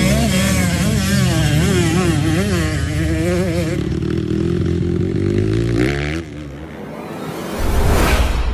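Motocross dirt bike engines revving up and down on the throttle, then a steadier, climbing engine note. Near the end a loud whoosh with a low boom comes in as an outro sound effect.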